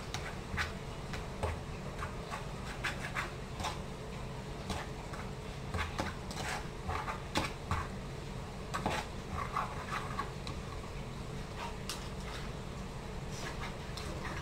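A spoon clicking, tapping and scraping in a bowl of thick sate marinade as it is mixed, in short irregular bursts, over a steady low hum.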